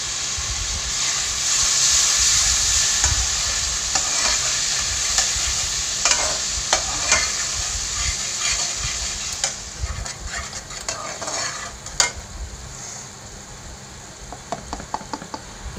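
Onion-and-spice masala frying in oil in a metal kadhai, sizzling with a splash of added water, while a metal slotted spatula stirs it and scrapes and clicks against the pan. The sizzle dies down over the last few seconds.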